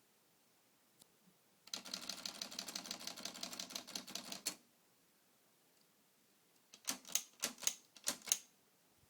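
Olivetti Lettera 32 manual typewriter clacking: a rapid, even run of clicks lasting about three seconds, then, after a pause, about six separate sharp strikes near the end.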